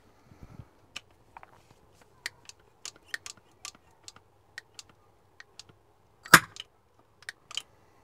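Metal sealant gun loaded with a Gripfill cartridge clicking and rattling as it is worked by hand: a string of irregular sharp clicks, with one loud clack just after six seconds in.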